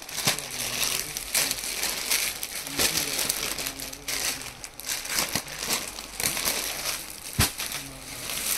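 Clear plastic garment packaging crinkling and crackling as a packed suit is handled and pulled out of it, with irregular sharp crackles throughout.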